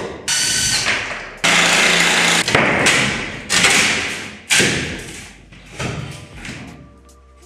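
Large chipboard wall panels being pulled down and handled: a string of about six loud thuds and clatters, each ringing on in a strongly echoing, nearly empty workshop hall.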